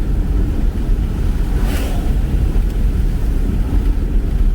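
Subaru Forester driving, heard from inside the cabin: a steady, loud low rumble of road and engine noise, with a brief hiss a little under two seconds in.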